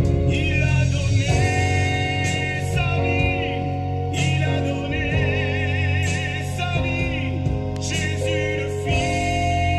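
Christian hymn music: singing over instrumental backing, with long held notes, one wavering in a strong vibrato midway, over a steady bass.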